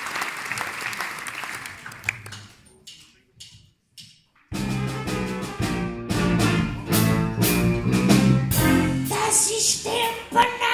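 Applause dying away, a few sharp clicks, then a short silence before a wind band with brass and drums strikes up a blues intro about four and a half seconds in.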